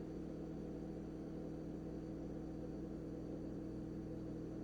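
Steady low electrical hum with a faint hiss underneath, unchanging throughout: the recording's room tone between spoken phrases.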